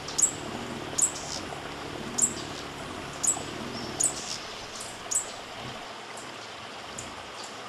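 A bird giving sharp, high chip calls that drop in pitch, about one a second, growing fainter near the end, over a steady background hiss.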